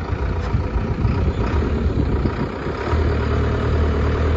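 2017 JCB 3CX dual-fuel CNG backhoe loader's engine running, settling into a steadier, even note about three seconds in.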